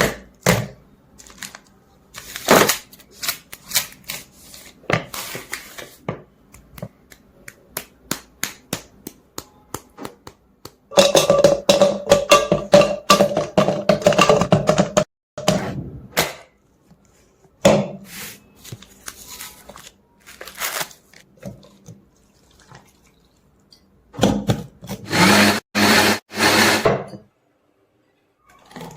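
Kitchen food-preparation sounds: a run of knocks and clatter from utensils and containers, with a blender running for about four seconds near the middle and again for a few seconds near the end.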